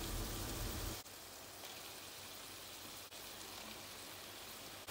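Faint, steady sizzling of tomato masala and bottle gourd cooking in a clay pot, dropping in level with cuts about a second in and again near the end.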